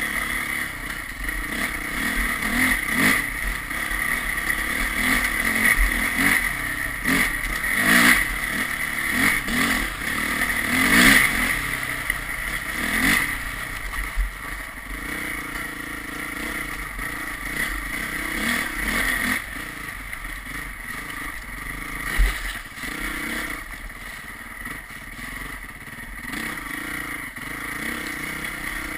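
Engine of a vehicle being ridden, revving up and down repeatedly for about the first half, then running more evenly and a little quieter.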